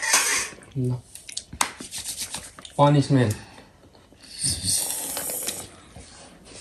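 A few short bursts of a person's voice, with rustling and rubbing noises between them.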